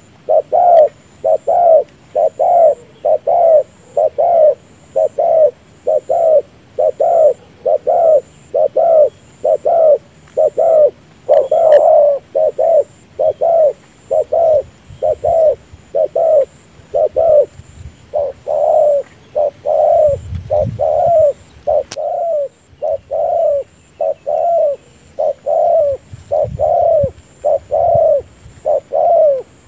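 Spotted dove giving a rapid, unbroken run of short bowing coos, about three every two seconds, the display coo it gives while dipping its chest; a single sharp click sounds once, a little past two-thirds of the way through.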